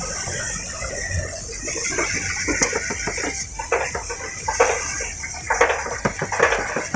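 Hose-fed spray nozzle jetting into a Howo truck's air-conditioning evaporator coil to clear out dirt and dust: a steady hiss, with irregular clattering and rattling from about two seconds in.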